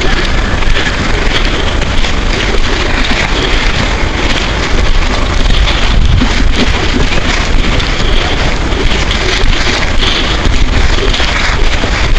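Wind buffeting the microphone: a loud, steady rushing noise with a deep rumble underneath.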